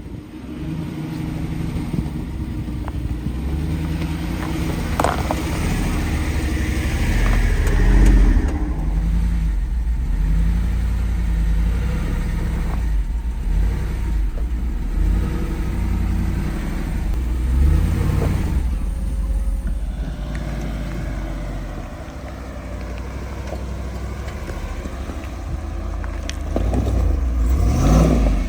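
Off-road vehicle engine running under load on a trail, its revs rising and falling repeatedly, loudest about eight seconds in and again near the end.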